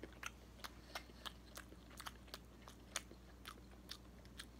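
Faint mouth chewing: quick, soft clicks, about three a second, as a mouthful of chicken, broccoli and rice is chewed.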